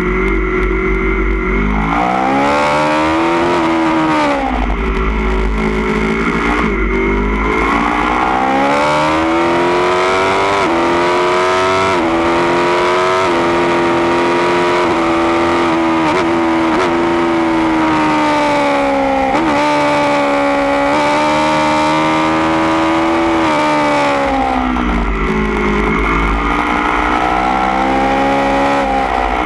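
Aprilia Tuono V4 1100 Factory's V4 engine through a baffled Austin Racing GP1R end can, heard from on board at speed: it revs up and down through the gears, the pitch climbing several times under acceleration, holding high for a long stretch, then dropping as the bike slows for corners. A low wind rumble on the microphone comes and goes.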